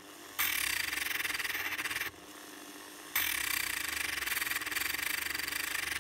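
Rotary engraving tool running at low speed with a small grinding stone rubbing along the edge of a planer blade: a steady scraping hiss over a constant motor hum. The grinding cuts out for about a second midway and then resumes. This is a light trial pass to check the bevel angle.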